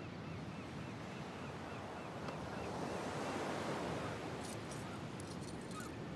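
Ocean surf washing in steadily, one wave swelling up about three seconds in. Faint high chirps repeat about four times a second through the first two seconds, and light clicks sound near the end.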